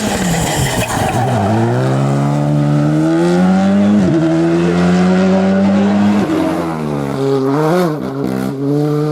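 Rally car engine at full throttle, its pitch rising as it accelerates, with short breaks at gear changes about four and six seconds in. Near the end the revs waver and dip as the driver lifts off, then the engine pulls steadily again.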